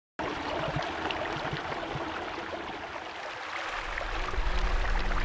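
A shallow stream running over rocks, with light splashing as hands rinse in the water; it starts suddenly out of silence. A low music drone comes in about four seconds in and grows louder.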